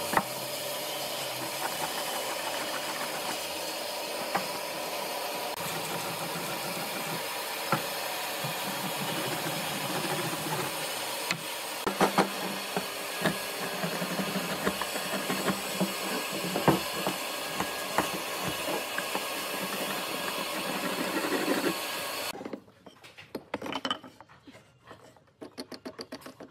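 A steady hiss-like running noise with scattered sharp knocks and scrapes as a marking gauge is worked along pine boards. The noise cuts off abruptly about 22 seconds in, leaving only a few quieter knocks.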